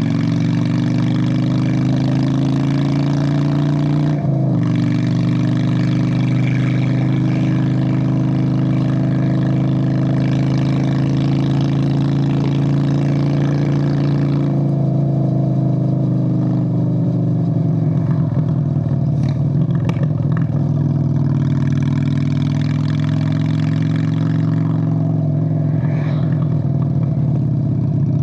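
Straight-piped 1997 Honda Steed VLX 600 (Shadow 600) V-twin running loud and steady under throttle. The note breaks and drops briefly about four seconds in, eases lower about halfway through, then climbs again before falling back near the end.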